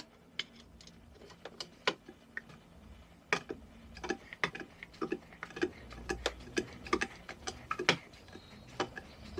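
Irregular small metal clicks and taps as cleaned brass jets and small parts are handled and fitted by hand into a 1972 Mobylette X7 moped carburettor.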